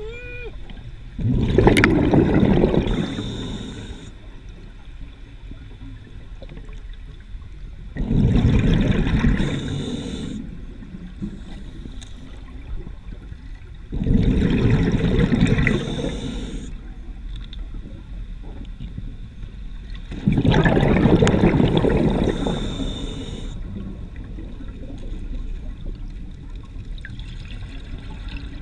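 A scuba diver's breathing through a regulator underwater: four exhalations about six seconds apart, each a rush of bubbles lasting two to three seconds and tapering off.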